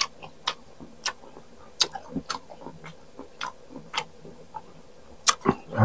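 Close-up crunching and chewing of crisp unripe green mango: a string of sharp, irregular crunches about one or two a second. A short hum from the eater's voice starts right at the end.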